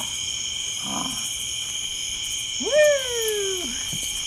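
A steady high chorus of night insects, with one loud pitched call about two and a half seconds in that swoops up and then slides down over about a second.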